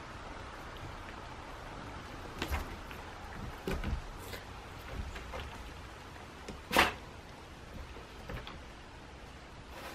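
A few short wooden knocks and thumps as dogs step and shift about on a plywood dog-house roof, the loudest a sharp knock about seven seconds in.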